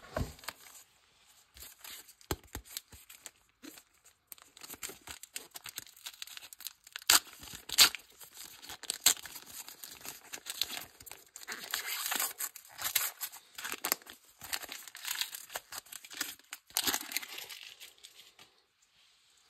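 Foil wrapper of a Panini Adrenalyn XL trading-card pack crinkling and being torn open by hand: a dense run of crackles and tears, sharpest about seven to nine seconds in.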